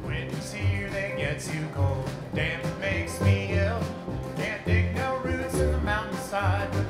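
Acoustic country band playing an instrumental break: upright bass, acoustic guitar, mandolin and snare drum keeping a steady beat, with a wavering lead melody on top.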